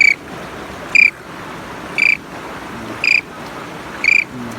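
A short high chirp repeating evenly about once a second, five times, over a steady rushing hiss.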